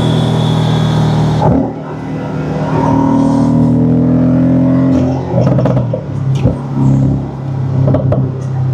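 Porsche 718 Cayman's turbocharged flat-four pulling under load. A short drop about a second and a half in, then the engine pitch climbs for a few seconds before it eases off into a rougher, uneven sound with a few clicks.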